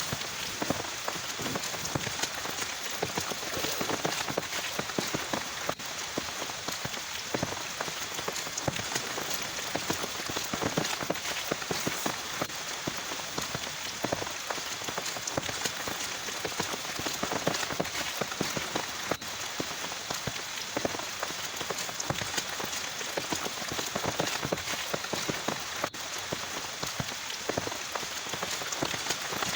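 Heavy rain falling steadily, a dense patter of drops striking a surface.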